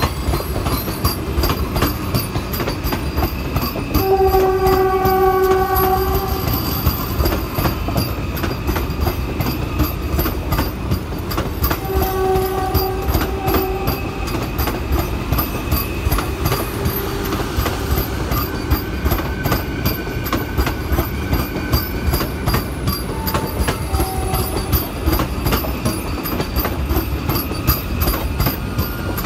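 Vande Bharat Express electric train coaches passing close by at speed, with a steady rumble and rapid clickety-clack of wheels over rail joints. A train horn sounds for about two seconds some four seconds in, again about twelve seconds in, and briefly near twenty-four seconds.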